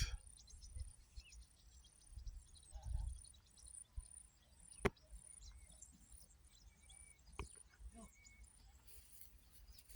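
Faint rural outdoor ambience: a thin, high-pitched chirp repeating steadily about twice a second, with two sharp clicks a couple of seconds apart and a few soft low bumps.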